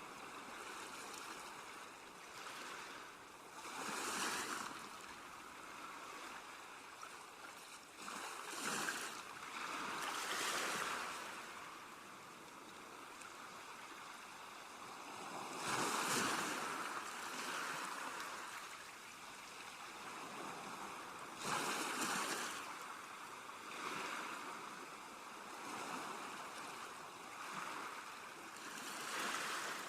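Sea waves breaking and washing on the shore, a steady hiss with louder surges every few seconds that rise and fade.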